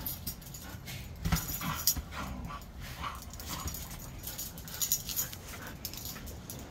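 Huskies playing and vocalizing in short, uneven calls, loudest about a second and a half in and again around five seconds.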